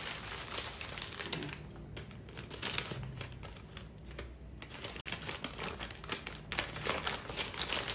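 Plastic courier mailer bag crinkling and rustling as it is handled and cut open with scissors, in a run of irregular crackles and snips.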